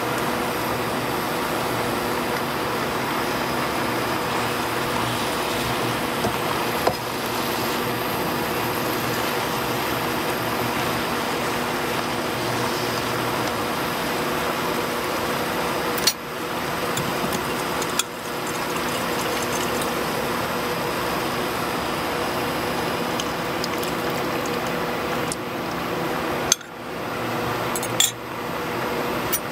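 Stir-fry vegetables (bok choy, napa cabbage, carrots, peppers) sizzling in a nonstick pan with a steady hiss, bubbling in the liquid the greens have released. A spatula knocks sharply against the pan a few times, twice near the end.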